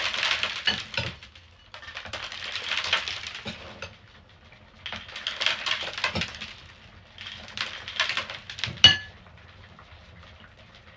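Cola in a plastic bottle fizzing and crackling in four bursts as spoonfuls are tipped into its neck, with small spoon clinks among them and one sharp clink with a short ring near the end.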